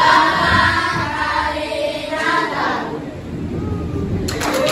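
A group of children singing together; the singing breaks off abruptly near the end.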